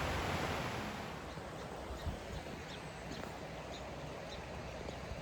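Outdoor ambience: a steady hiss that eases about a second in, with faint, repeated high chirps of small birds.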